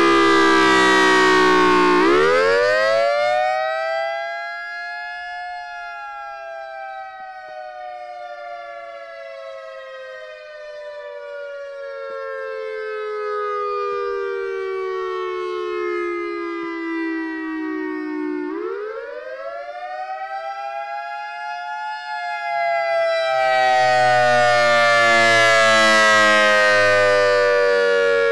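EOWS 612 electronic outdoor warning siren sounding a wail: the pitch climbs quickly about two seconds in, then falls slowly for over twelve seconds, and climbs and falls again from about eighteen seconds in. Its rotating horn array makes the sound swell and fade, loudest at the start and again over the last few seconds as the horns face toward the listener.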